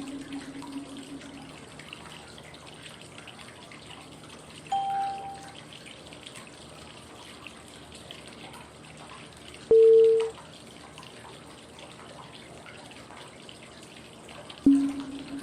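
Steady flowing-water white noise with a short soft cue tone about every five seconds, pacing the inhale, hold and exhale of 555 breathing. A higher tone sounds about five seconds in, a louder middle tone about ten seconds in, and a low ringing tone near the end.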